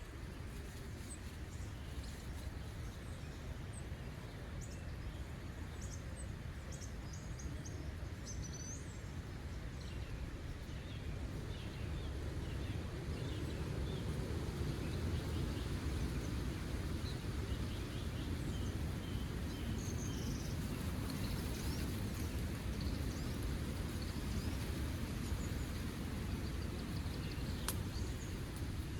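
Steady low outdoor rumble that grows a little louder about halfway through, with small birds chirping in short scattered calls over it.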